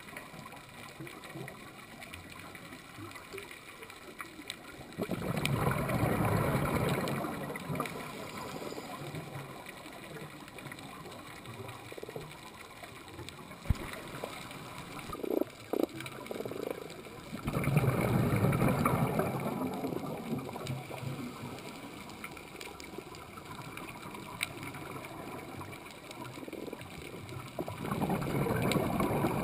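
Scuba diver's exhaled regulator bubbles heard underwater: a rushing gurgle of two to three seconds that comes three times, about twelve seconds apart, with faint clicks in the quieter stretches between.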